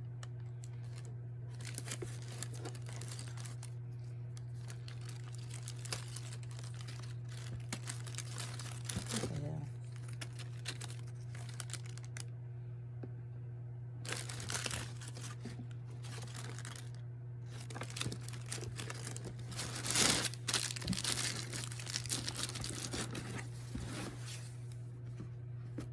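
Paper and packaging of a sneaker box crinkling and tearing in bursts as it is unpacked, loudest about two-thirds of the way through, over a steady low hum.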